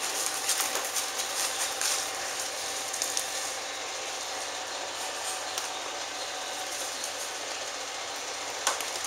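Shetland Sheepdog puppies scampering and tussling on a hard floor and sheets: light claw clicks and scuffles over a steady hiss. The clicks come thick at first and thin out after about three seconds.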